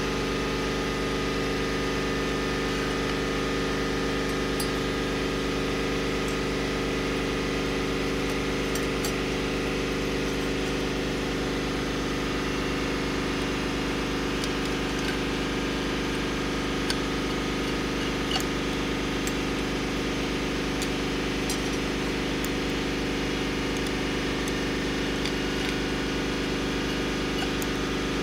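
Shop air compressor running steadily, an even mechanical drone. A few faint metallic clinks come from clutch plates being stacked onto the hub.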